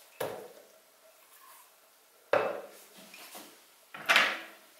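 A ceramic mug knocked against a plastic blender beaker to empty soaked dried shrimp into it. Three separate knocks, about two seconds apart.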